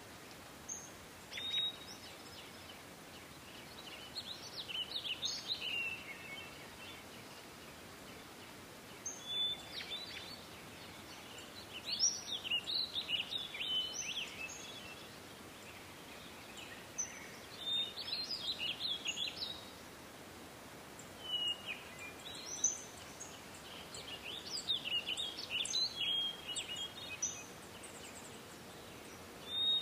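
Songbirds singing: phrases of quick chirps and whistles come every few seconds with short pauses between them, over a steady faint hiss.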